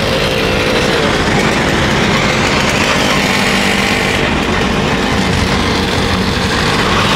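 Steady engine and road noise of a vehicle driving in city traffic, with a small, high-revving engine running throughout.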